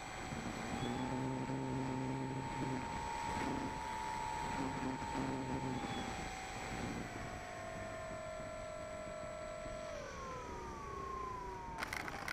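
E-flite Apprentice's electric motor and propeller whining in flight, rising slightly about a second in, dropping in pitch around seven seconds and falling away after ten seconds as the throttle is cut. Near the end a rattling burst of knocks as the plane touches down on the sand.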